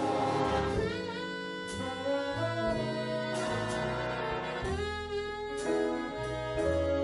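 A live jazz band plays a slow piece, with long held melody notes over a bass line.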